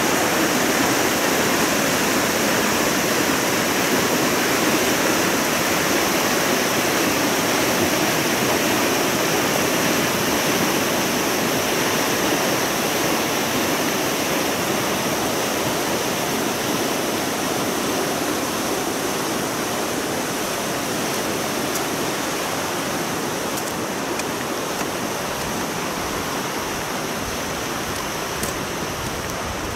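A river rushing steadily, growing slowly a little quieter over the stretch.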